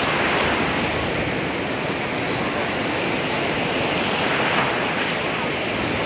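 Ocean surf breaking and washing around in the shallows: a steady rush of water that swells a little about four and a half seconds in.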